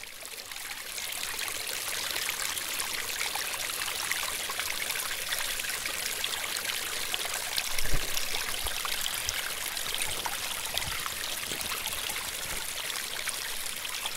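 A small brook trickling and splashing over rocks, fading in over the first second or two and then steady. A few dull low thumps come about halfway through, the first of them the loudest moment.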